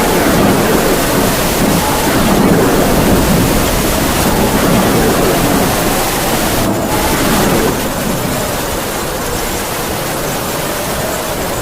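Heavy rain falling steadily, with howling wind: a faint whistling tone that slowly rises and falls runs under the constant hiss of the rain.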